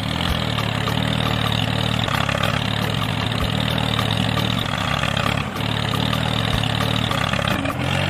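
Tractor engine running steadily at an even, low pitch, with no change in speed.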